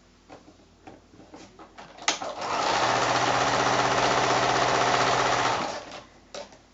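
Electric sewing machine stitching a seam that joins patchwork squares: after a few small handling clicks and a sharp click about two seconds in, the machine runs at a steady speed for about three and a half seconds, then stops, with a few light clicks after.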